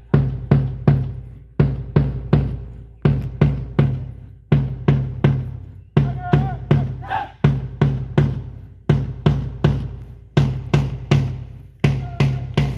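Marching drum beat of bass and snare drum keeping time for a rhythmic rifle drill, struck in even groups of about four beats every second and a half. A short higher-pitched tone comes in about every six seconds.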